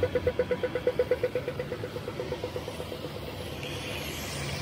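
Australian pedestrian crossing signal ticking rapidly, about eight ticks a second: the walk phase of the audio-tactile push-button signal. The ticking fades out about two and a half seconds in, leaving the hiss of rain and a low traffic rumble.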